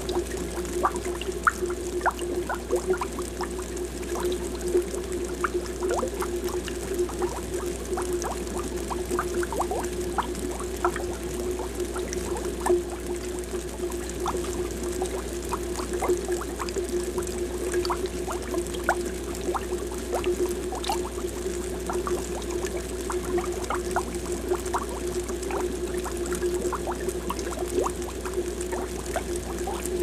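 Aquarium air bubbles rising and breaking at the water surface: a continuous stream of small pops and gurgles over a steady low hum.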